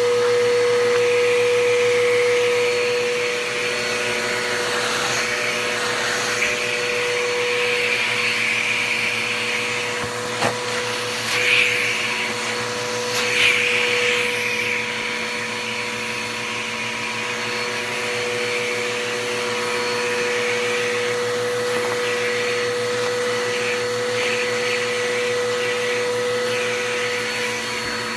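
Bissell PowerForce Bagless (6583) upright vacuum cleaner running, a steady motor whine under a rushing of air whose strength rises and falls, with a few brief louder surges of airflow about ten to fourteen seconds in.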